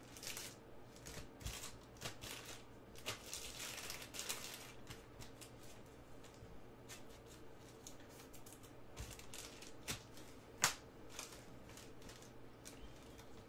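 Prizm basketball trading cards handled and slid through a stack by hand: soft swishes and small clicks, with one sharper click about ten seconds in, over a faint steady hum.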